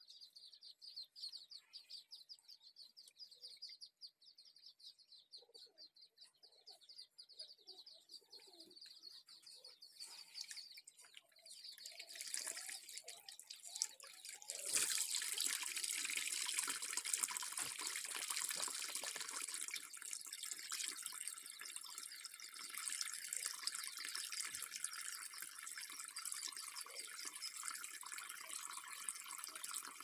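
Water from a rubber garden hose pouring and splashing into a shallow fabric-lined pond over gravel. It starts faintly, builds from about ten seconds in, and becomes a loud, steady splashing rush about halfway through, with the hose end held above the water and spraying. Before that, small birds chirp rapidly in the background.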